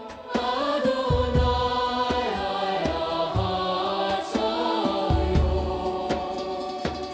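Devotional song: a choir singing long held notes over deep bass notes and light percussion.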